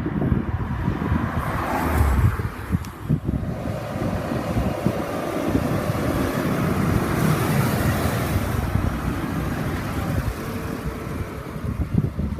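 Cars driving past, the sound of engine and tyres swelling and fading, with wind buffeting the microphone.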